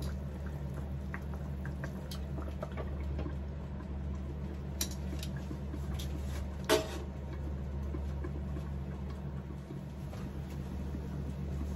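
Wild hog chops simmering in whiskey in a covered skillet, a soft bubbling with small crackles over a steady low hum. A sharp clink of the glass lid and utensils against the pan sounds about two-thirds of the way through.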